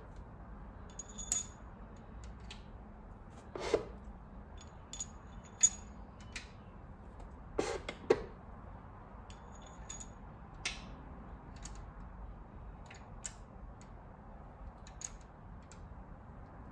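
Steel push rods and rocker arms of a 3.8L V6 clinking and clicking as they are handled and set into the engine: scattered light metallic taps, some ringing briefly, with a few duller knocks.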